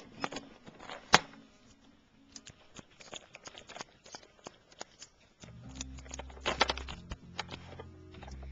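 Plastic clicks and clatter from a Lego Technic pneumatic engine model, heard close up. A sharp click comes about a second in, then scattered light ticks. Past halfway a low steady hum comes in under a quick run of clicks.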